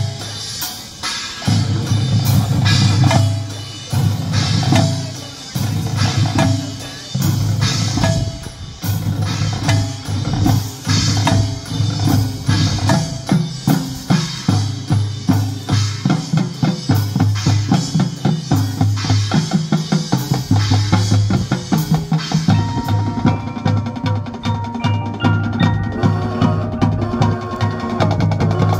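High school marching band playing its field show: drum and percussion hits over sustained low chords, broken by short pauses. Near the end it settles into a fast, even drum pulse under a higher melody.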